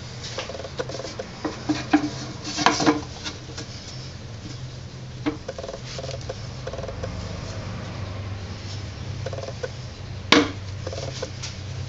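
Electric potter's wheel running with a steady low hum, under scattered clicks, knocks and short squeaks of hands and tools working on the clay. One sharp knock, the loudest sound, comes near the end.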